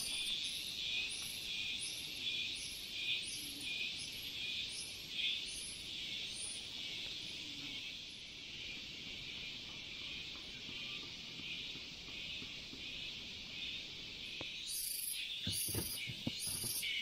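Steady chorus of forest insects, shrill and pulsing, with a sharper chirp repeating about twice a second that fades midway and returns louder near the end. Near the end there are a few sharp knocks from a tent peg being tapped into the ground.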